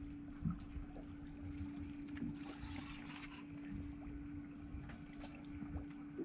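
Steady low hum of the boat's idling engine, with a few faint scattered clicks and knocks from the rod and reel as an angler fights a fish.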